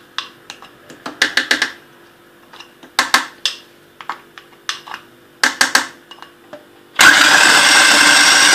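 A few sharp knocks and clatters against a plastic food processor bowl as butter is spooned onto Oreo cookies. About seven seconds in, the food processor's motor switches on abruptly and runs loudly and steadily, grinding the cookies and butter into crumbs.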